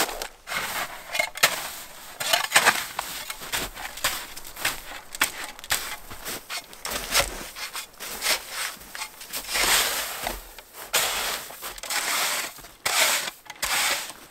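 Crunching in crusty snow, heard as an irregular string of crunches, as of someone moving around on foot.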